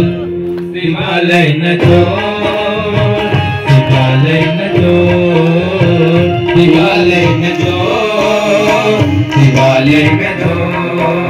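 Devotional bhajan: a sung melody over a dholak beating a steady rhythm, with the congregation clapping along.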